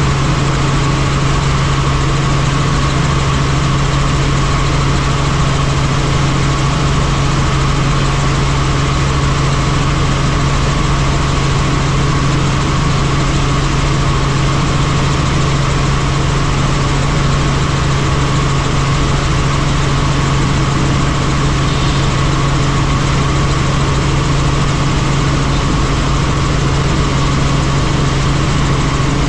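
Helicopter running steadily, a constant loud drone: a low hum and a higher whine over an even rush of noise.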